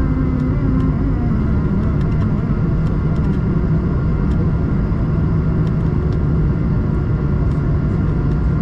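Steady rumble of engine and airflow noise inside the cabin of an Airbus A220-300 airliner, with a low hum that fades out about a second in.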